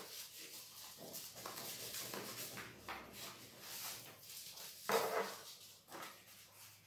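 Stiff paper rustling and scraping against a tabletop as a sheet is folded and creased by hand, in short uneven bursts, with a louder rustle about five seconds in.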